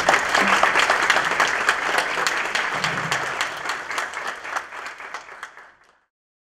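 Audience applauding, a dense run of many hands clapping that fades away and cuts to silence about six seconds in.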